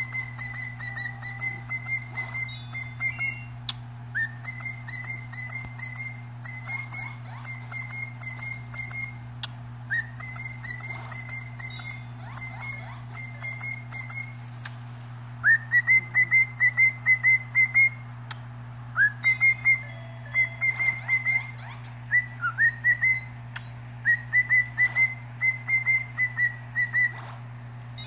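Cockatiel whistling: phrases of quick, short repeated notes, each phrase opening with an upward slide, about seven phrases with brief pauses between them, louder in the second half. A steady low hum runs underneath.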